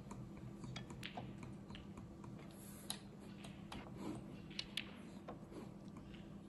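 Scattered, irregular light clicks over a low steady hum.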